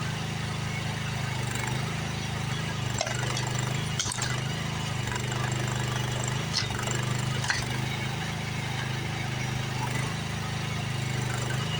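Excavator engine running steadily, its note stepping up and down as the hydraulics are worked, with a few sharp cracks of rotten shed siding breaking under the bucket.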